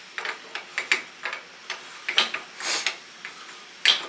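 Irregular metal clicks and clinks from working on a 2-inch SB pulling tool, with a short scrape about two-thirds of the way in and a sharp clink near the end. This is the sound of its core cap being worked loose and unscrewed, with a punch holding the core from spinning.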